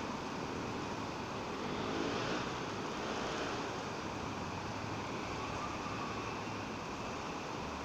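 Steady outdoor noise of wind on the microphone over a faint, distant rumble of traffic.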